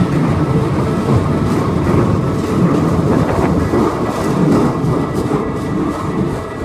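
Keikyu train passing close by, a loud, steady rumble of wheels and running gear on the rails that eases slightly near the end.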